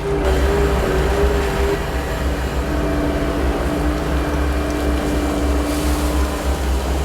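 New Holland L318 skid steer running under way, a steady low engine rumble with a hydraulic-type whine that drops in pitch for a few seconds in the middle and then rises back.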